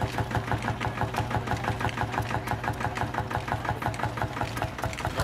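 Small vintage tractor's engine idling, with a steady, rapid firing beat.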